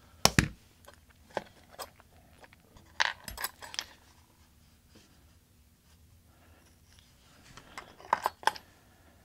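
Small metal clicks and clinks from a Schlage lock cylinder being handled and taken apart. A sharp knock comes just after the start, a cluster of clicks comes around three seconds in, and more come near the end.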